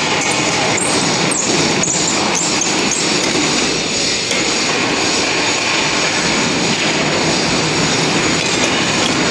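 Loud, steady industrial machinery noise around a large chamber filter press, with a few sharp clicks in the first three seconds.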